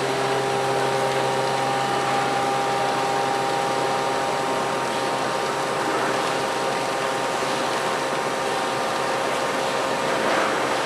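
Kova KA-110U five-axis CNC machining centre milling a turbine part: a steady hiss with several steady whining tones from the spindle and cutter, the tones fading over the second half.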